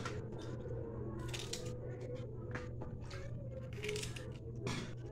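Kitchen food-preparation handling: scattered short clicks and brief scraping or squishing noises as food is worked by hand and with a utensil in a basin, over a steady low hum.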